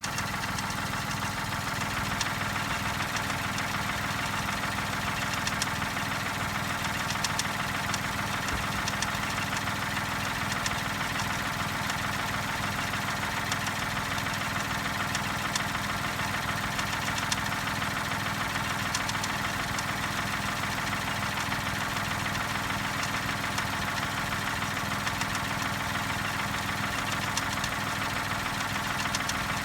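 Daihatsu Move L175S's three-cylinder 660 cc engine idling cold, with faint irregular clicks over the steady running. It is an abnormal noise that the owner hears from the right front of the car and that goes away once the engine is warm.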